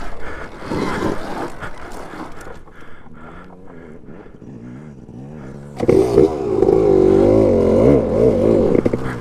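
Clattering and scraping for the first couple of seconds, then about six seconds in a dirt bike engine comes in loud, revving hard with its pitch rising and falling quickly under the throttle.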